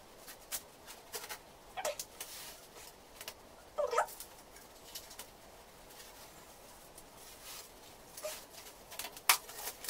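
Plastic cling film being pulled off its roll and wrapped around the waist: irregular crinkles and crackles, with a louder squeaky pull of film about four seconds in and a few sharp clicks near the end.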